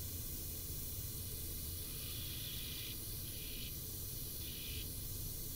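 Belt grinder running, its abrasive belt grinding down a mild steel sword pommel: a steady hum and hiss, with a few short brighter hissing stretches in the second half.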